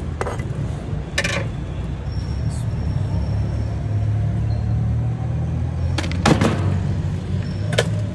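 Steady low mechanical rumble with a few sharp metal clinks from ladle and bowls, the loudest about six seconds in.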